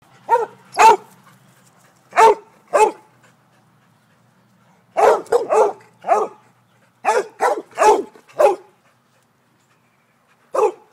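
Basset hound barking: about a dozen short barks in loose clusters, with pauses of a second or two between groups.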